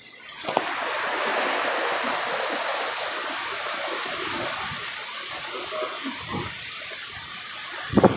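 Hurricane wind and wind-driven rain rushing steadily. The sound comes in suddenly about half a second in and eases slightly later on, with a brief loud noise right at the end.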